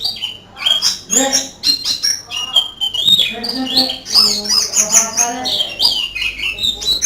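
A white-eye (pleci) sings in the style of a canary: a fast, varied song of high chirps, trills and gliding whistles, in phrases broken by short pauses.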